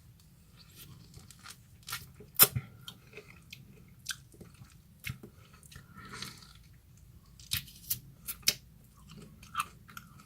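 A person biting into and chewing a quarter of a lemon, with sharp crunching clicks at irregular moments. The loudest crunch comes about two and a half seconds in, and a cluster follows in the last third.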